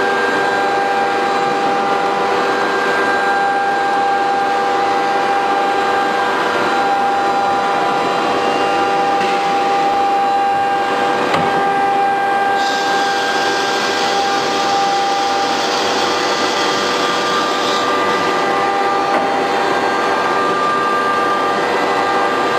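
A 1325 ATC CNC router's spindle running, with its cutter milling a raised-panel door pattern into a board. It gives a steady whine of several held tones over a noisy rush, and a higher hiss joins for about five seconds midway.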